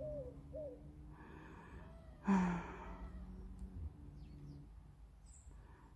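A woman's sigh, one loud breathy exhale a little over two seconds in.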